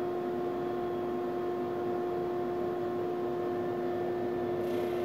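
Powermatic 2244 drum sander running with its drum and conveyor on, along with the dust collection: a steady hum with a held whine over an even hiss. A higher hiss joins about four and a half seconds in.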